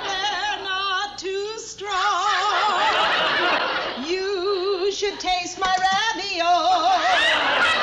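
A woman singing wordless, operatic held notes with a heavy, wobbling vibrato, in short phrases. Audience laughter comes up in the middle and again near the end.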